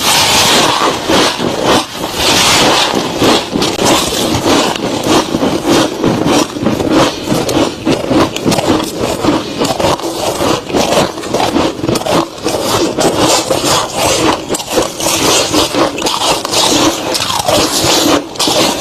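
Close-miked crunching of soft, crispy freezer frost: a dense, unbroken run of crackling crunches.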